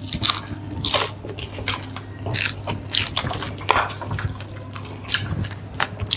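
A person eating a burger and French fries: a run of irregular crunchy bites and chewing.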